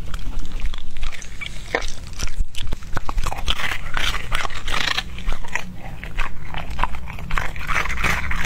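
Border collie chewing a chunk of raw meat on the bone, with rapid wet crunches and clicks of its teeth that come thickest from about halfway.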